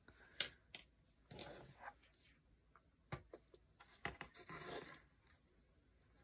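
Faint rustling, scraping and small ticks of thread and needles being handled and drawn through the sewing holes of a fabric-covered book board, tightening slip knots. Two longer rustles come about a second and a half in and again around four and a half seconds.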